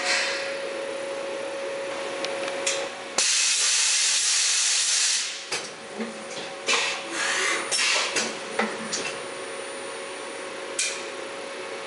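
Cincinnati Milacron Arrow 500 vertical machining center doing an automatic tool change. A steady hum and hiss runs for about three seconds, then a loud hiss of air for about two seconds. A series of clunks and clicks follows as the 21-tool carousel swings in to the spindle and back out, with a last click near the end.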